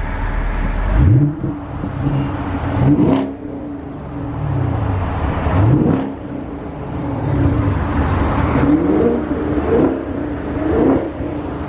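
Chevrolet Camaro V8 engine and exhaust pulling through several accelerations, its pitch climbing and dropping again with each gear change. The exhaust note is fairly quiet.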